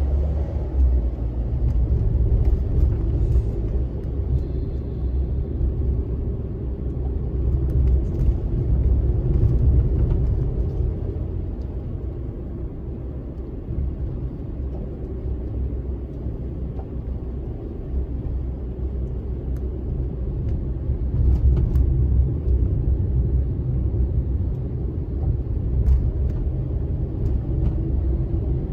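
Road noise inside a moving car's cabin: a steady low rumble of tyres and engine that swells and eases slowly, quieter in the middle stretch.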